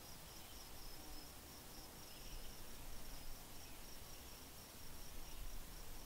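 An insect chirping in a steady, high, finely pulsing trill over a faint low rumble.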